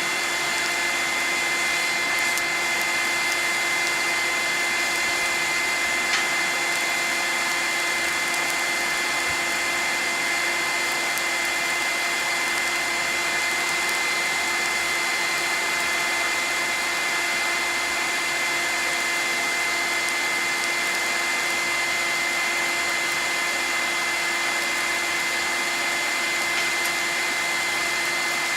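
An electric air blower feeding the forge runs steadily, a constant rush of air with a high whine.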